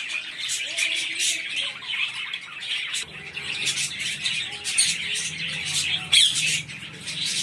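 A flock of small aviary birds, budgerigars and finches, chattering and chirping continuously with many overlapping short calls. About three seconds in, a low steady hum joins underneath.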